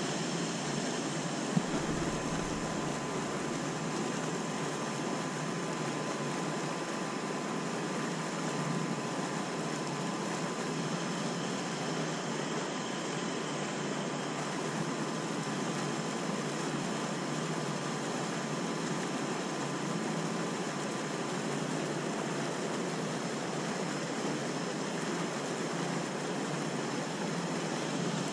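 Water gushing steadily out of concrete outfall pipes and splashing into the canal below, an even rushing noise.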